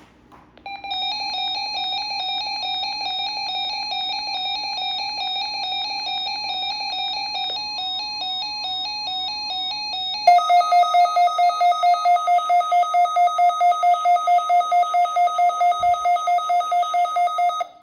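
Emergency Alert System weekly test alert tones: an electronic tone warbling in quick pitch steps for about ten seconds, then a louder two-note tone pulsing about five times a second that cuts off sharply near the end.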